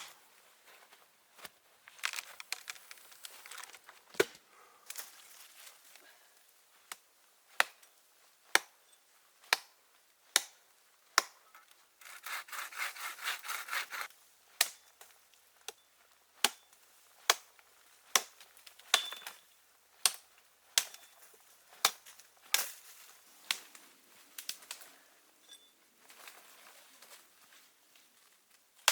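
Wood being worked with hand tools: a long run of sharp wooden knocks, about one every three-quarters of a second, broken near the middle by about two seconds of fast hand-sawing.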